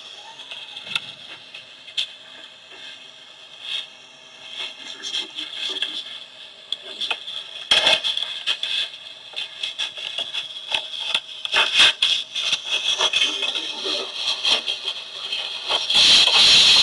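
Irregular crackling and clicking over a steady high hiss. The clicks grow denser and louder from about halfway through, and a loud burst of crackle comes near the end.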